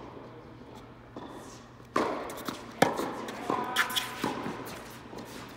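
Tennis balls struck by racquets in a quick exchange at the net: a rapid run of sharp hits starting about two seconds in, the loudest near the middle, echoing in a large indoor hall, with players' feet shuffling on the hard court.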